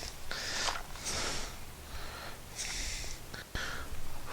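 A person breathing audibly through the nose, in short airy breaths about once a second, with a single sharp click about three and a half seconds in.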